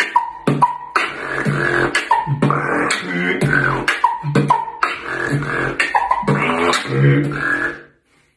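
Solo vocal beatboxing: sharp snare and kick hits in a steady beat, about two a second, with hummed, pitched tones held between them. It stops suddenly just before the end.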